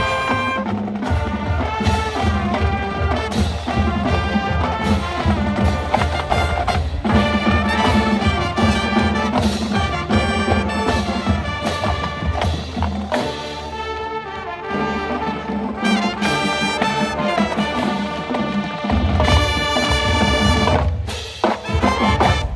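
Marching band playing: brass section with drumline percussion keeping a steady beat.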